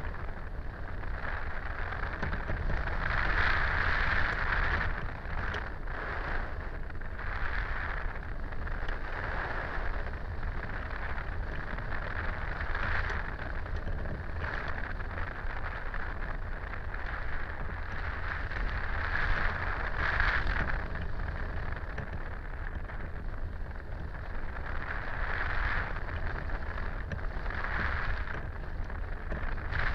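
Wind rushing over the microphone of a camera mounted on a NorthWing Freedom hang glider in flight: a steady hiss with a low rumble underneath, swelling and easing every few seconds.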